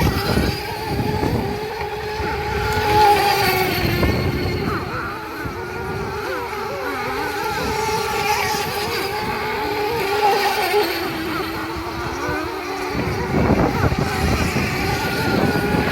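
Radio-controlled model boat's motor running at high speed, a high, steady whine whose pitch wavers up and down as the boat runs and turns. Rumbling wind noise comes in strongly near the end.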